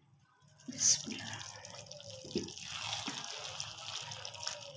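Pot of rice and water bubbling at a boil, with a steady watery hiss and scattered small pops, starting about half a second in.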